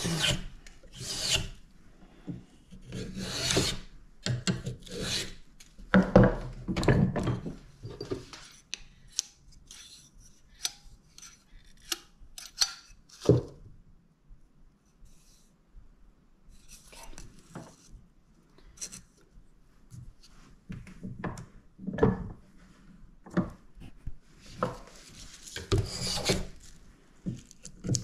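Hand plane shaving a spruce violin bass bar down to thickness: runs of rasping wood-planing strokes, a quieter stretch in the middle with light clicks and one sharp knock as the bar is handled, then another run of strokes near the end.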